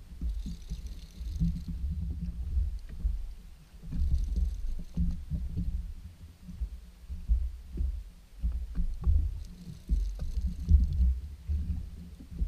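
Uneven low rumbling of wind and water buffeting the microphone on a jet ski drifting at sea. Short higher rasps come and go three times, about half a second, four seconds and ten seconds in.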